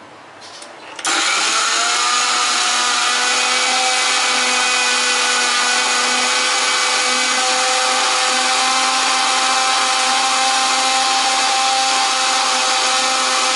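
Electric kitchen mixer grinder switching on about a second in, spinning up quickly, then running steadily at full speed as it grinds fresh herbs, green chillies, onion, ginger and garlic into a paste.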